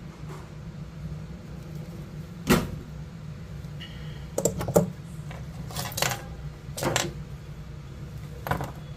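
Steel tweezers and small hand tools clicking and tapping on a repair bench, about seven sharp light clicks with the loudest about two and a half seconds in, over a steady low hum.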